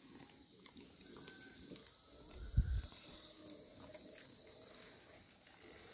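Steady high-pitched insect chorus, with one short low thump about two and a half seconds in.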